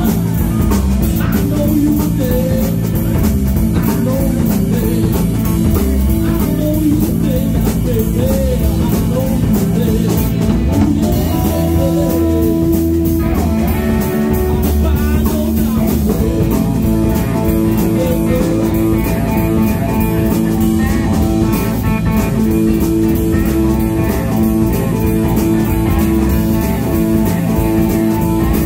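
A live blues-rock band playing loud: two electric guitars over a drum kit.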